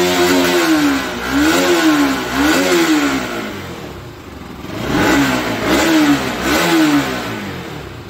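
Bajaj Pulsar RS200's single-cylinder fuel-injected engine revved by hand in quick blips, two rises and falls about a second apart, a dip toward idle, then two more. It revs up cleanly without misfiring, which the mechanic takes as proof that the fuel-pump fault and the missing are cured.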